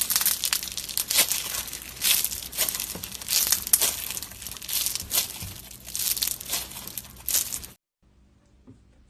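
Slime being squeezed and pressed by hand, making dense crinkling, crackling pops. It stops abruptly about three-quarters of the way in, leaving only faint small handling sounds.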